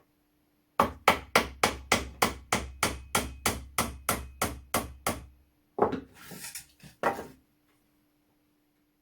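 Small hammer tapping rapidly and evenly, about four blows a second, to drive out a rust-seized part of an old flintlock shotgun. After a pause come one more blow, a short scraping rasp and a last blow.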